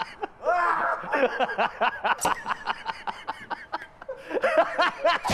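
Men laughing hard in quick, breathy bursts, several voices over one another.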